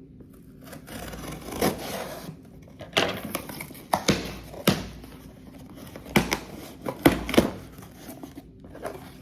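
Shipping packaging being torn open and handled: irregular rustling and crinkling with several sharp rips.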